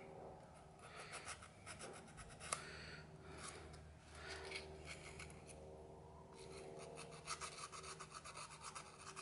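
A small black magneto part being rubbed clean with a cloth: quick, fast-repeating scratchy strokes in two spells, with a short pause between them.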